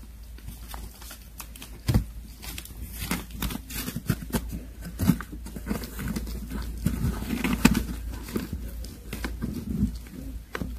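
Kittens crunching dry kibble from a tray, with newspaper crinkling beneath them: a run of irregular small clicks and crackles.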